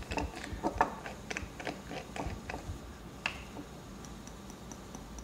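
Light, irregular clicks and taps of a paintbrush against a small plastic cup as egg-tempera paint is stirred and mixed, thinning out after about three seconds.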